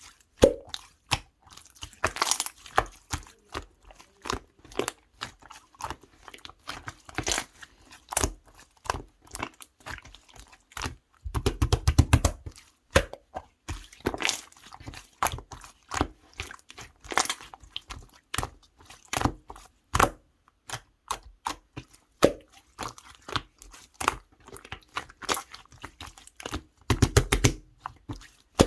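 Clear green pearl slime being squished and worked by hand: a stream of sticky clicks and air-bubble pops, with two denser runs of rapid pops, about twelve seconds in and near the end.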